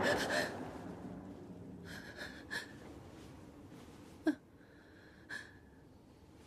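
A woman waking with a start, gasping and breathing heavily. The breaths are loudest at first and grow quieter, with a short sharp intake about four seconds in.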